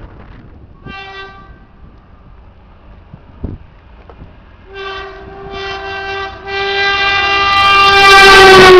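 Air horn of an approaching OSE class 220 diesel locomotive. It gives a short toot about a second in, then from about five seconds a few blasts that run into one long blast, which grows loud and drops slightly in pitch as the locomotive draws level. The rumble of the train builds beneath it near the end.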